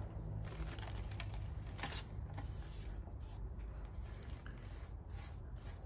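Faint handling sounds of rice paper being smoothed and pulled onto a duck decoy: soft rustles and scattered light clicks, over a steady low hum.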